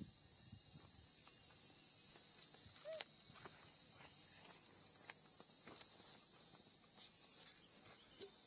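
Steady high-pitched drone of insects, with scattered faint clicks and a few short falling chirps, one about three seconds in and another near the end.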